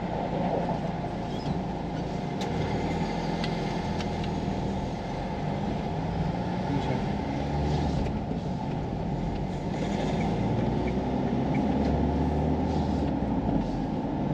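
Renault Master camper van's diesel engine pulling away from a standstill and gathering speed, a steady engine and road-noise drone whose note shifts in steps as it goes up through the gears.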